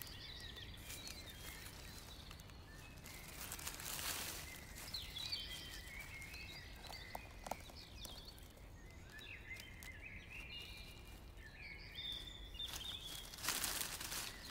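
A songbird singing in short phrases of high, sliding notes, in several separate bursts. Dry fallen leaves rustle briefly about four seconds in and again near the end as a hand brushes through the leaf litter.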